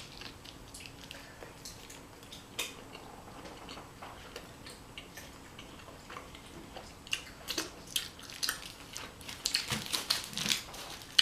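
A person chewing a mouthful of burrito close to the microphone: soft, scattered mouth clicks that come thicker in the last few seconds.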